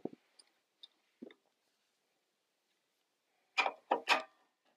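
Hand tools working the mounting screws of a newly fitted treadmill motor: a knock, a few light clicks, then near the end three short, louder strokes close together as the screws are tightened.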